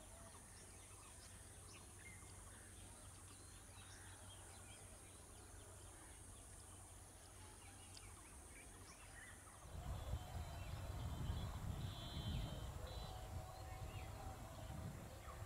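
Rural outdoor ambience: scattered bird chirps over a steady high insect hiss. About ten seconds in, the hiss stops and an uneven low rumble of wind buffeting the microphone takes over, louder than before.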